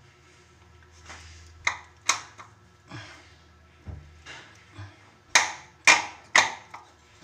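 A series of sharp knocks: two about a second and a half in, then three about half a second apart near the end.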